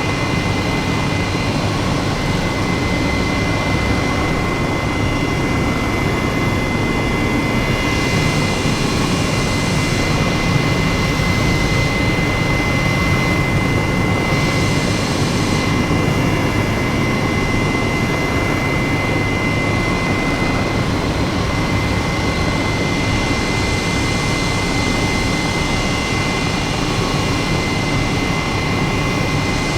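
Loud, steady engine drone with a constant high whine over a wide rush of noise, unchanging throughout.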